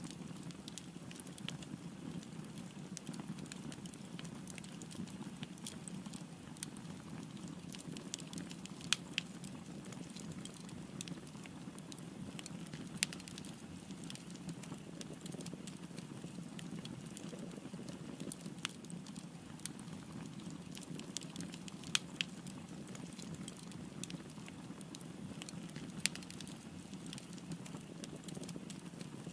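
Wood fire crackling: a steady low rush of burning with frequent small crackles and a few sharper pops, the loudest about 13, 22 and 26 seconds in.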